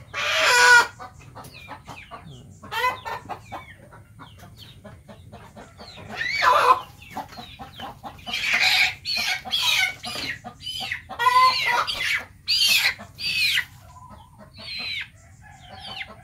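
Chickens clucking and squawking, a string of separate calls a second or two apart, some rising and falling in pitch.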